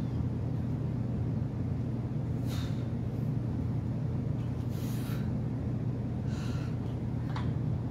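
Short, forceful breaths from a man straining through seated barbell overhead presses, four of them a second or two apart, over a steady low hum.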